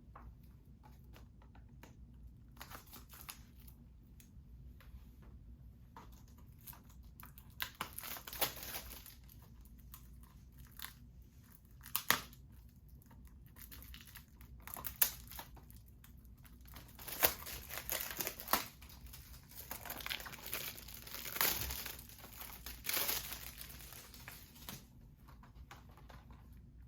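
Plastic shrink-wrap being torn off a boxed Blu-ray set and crumpled by hand: irregular crinkling and tearing with a few sharp clicks, starting a few seconds in and easing off near the end.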